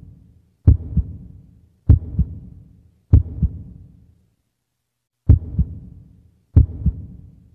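Heartbeat sound effect: paired low thumps, lub-dub, about once a second, with one beat skipped midway.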